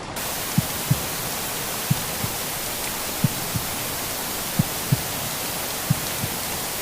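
Steady white-noise hiss with a slow heartbeat under it: soft low double thumps, lub-dub, repeating about every 1.3 seconds.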